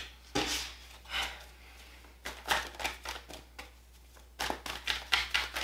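A tarot deck being shuffled by hand: a run of short papery flicks and snaps, spaced out at first and bunched more tightly near the end.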